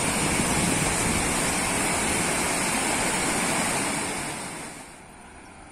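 River rapids rushing over rocks and a low weir: a steady, loud wash of white water that falls away to a quieter level near the end.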